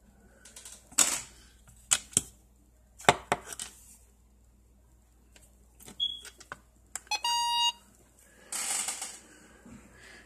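Radio Shack 12-262 weather radio being set: clicks of its buttons being pressed, then a short electronic beep of under a second about seven seconds in, followed by a brief rustle of handling.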